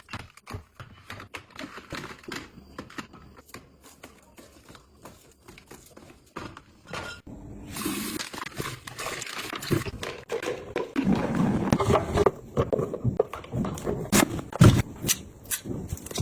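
Food containers and packaging being handled while stocking a refrigerator: light clicks and taps, then a hissing rustle starting about eight seconds in, and louder knocks and clatter near the end.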